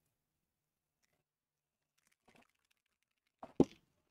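Mostly quiet, with a faint scrape of a palette knife spreading texture paste over a stencil, then one sharp knock about three and a half seconds in.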